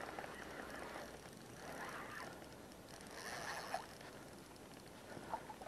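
Faint winding of a spinning reel as the lure is retrieved, with a few soft swells of sound over a quiet background hiss.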